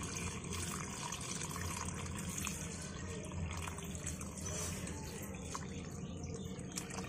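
A steady stream of water poured from a stainless steel bowl, splashing into a flowerpot already full of water.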